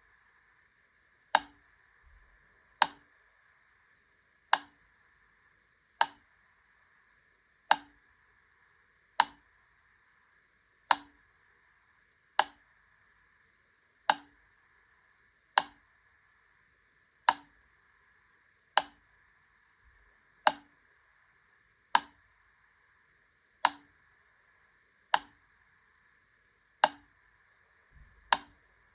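Wittner Taktell Piccolo clockwork metronome ticking slowly, one sharp tick about every one and a half seconds (about 40 a minute). The gaps alternate slightly shorter and longer, so the beat is a little uneven.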